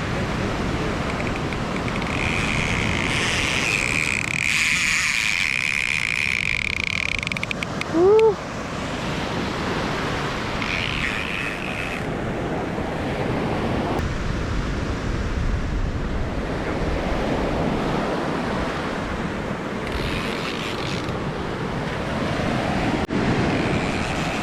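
Rough surf breaking on the beach, with wind buffeting the microphone. A steady high whine lasts several seconds near the start, and a short loud squeal comes about eight seconds in.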